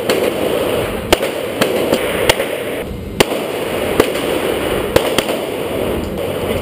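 Handgun shots: about eight sharp cracks at an uneven pace, roughly one a second, over a steady background rush.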